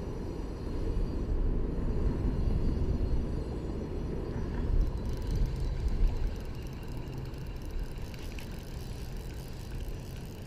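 Steady low rumble of road traffic crossing a nearby bridge.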